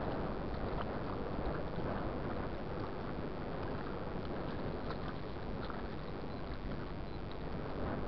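Steady wind rumbling on the microphone over choppy water, with light splashing of small waves scattered through it.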